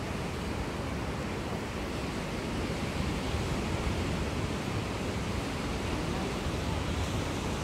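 Steady outdoor wind noise on the microphone: an even rushing hiss with a low rumble and no distinct events.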